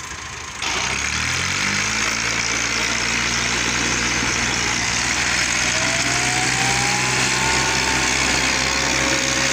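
Massey Ferguson 260 Turbo tractor's three-cylinder diesel engine revving up about a second in and then running steadily at high revs under heavy load, pulling against a chained tractor.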